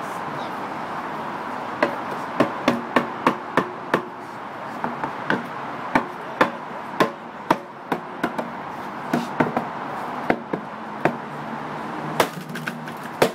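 A hammer striking the wooden head of an oak whisky barrel, knocking the head down into place in the barrel's top. A run of sharp knocks, about one to two a second, begins about two seconds in.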